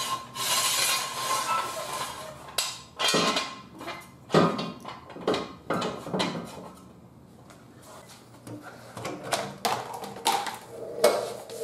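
Metal tools and a jack stand being handled and set down, giving a string of separate clanks and knocks. A rushing noise comes first for about two seconds.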